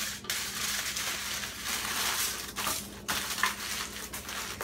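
Aluminium foil crinkling and crumpling as it is folded by hand into a tight packet, in spells broken by short pauses.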